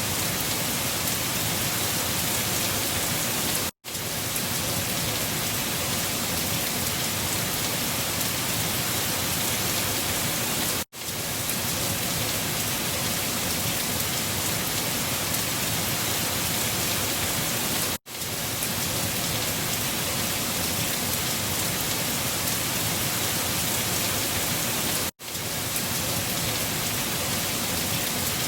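Steady rushing storm noise of wind and rain, with no pitch or rhythm of its own. It cuts out for an instant four times, evenly about seven seconds apart, where a short recording loops.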